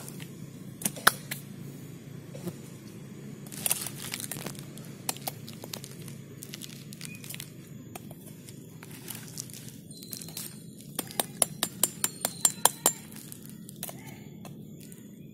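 Knife cutting into a montong durian's spiny husk: scattered cracks and crunching as the blade works into the shell, with a quick run of about a dozen sharp clicks about two-thirds of the way in.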